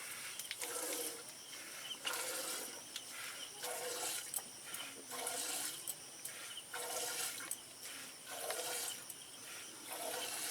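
Cow being milked by hand: jets of milk squirting into a pail in a steady rhythm, about seven hissing squirts.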